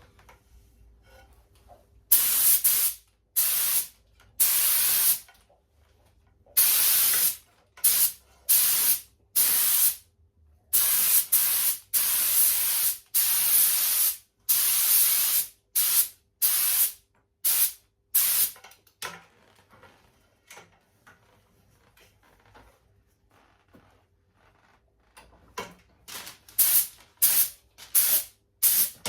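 2K lacquer spraying onto a headlight lens as a second coat, in repeated bursts of hiss, some a second or more long. The sprays stop for several seconds past the middle, then come back as a run of short quick bursts near the end.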